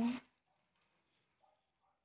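A woman's voice finishing a word, then near silence.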